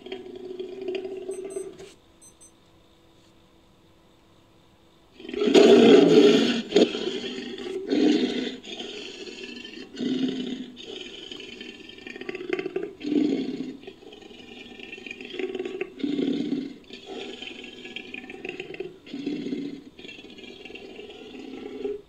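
Sound-effect roar of an American lion, put together from big-cat recordings. A short call opens, then after a pause comes a loud roar about five seconds in, followed by a string of shorter calls roughly once a second.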